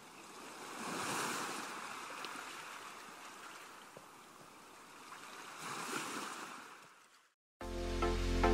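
Gentle waves washing on a shore, swelling twice and then fading out, followed near the end by electronic music starting up.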